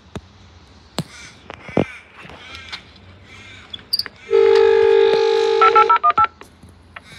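Station help-point intercom sounding a steady two-note electronic tone for about a second and a half, then a quick run of short beeps at changing pitches, as the next-train information service connects.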